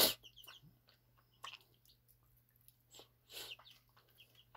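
Baby chicks peeping in short, high chirps, a few at a time and mostly in the first half-second. A short, sharp hiss-like burst comes right at the start and is the loudest sound, with a softer one about three and a half seconds in.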